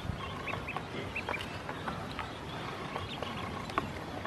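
Ducklings pecking feed and drinking in a plastic basin: irregular quick taps of bills on the plastic and the bowl, with a few short high peeps.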